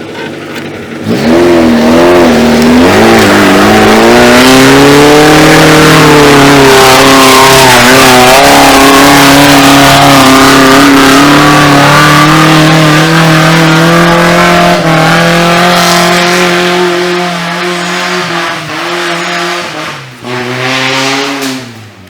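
Off-road vehicle engine revving hard and held at high revs for a long stretch, its pitch wavering up and down. Near the end it eases off, revs up once more briefly and falls away.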